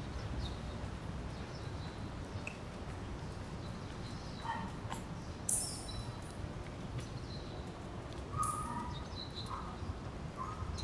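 Wet city street ambience: a steady low rumble, with scattered short high chirps and a couple of brief hissing bursts about five and a half and eight and a half seconds in.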